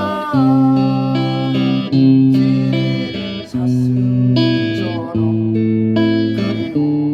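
Instrumental break of a slow Korean ballad backing track: a guitar plays the melody in sustained notes over a bass line, with no singing.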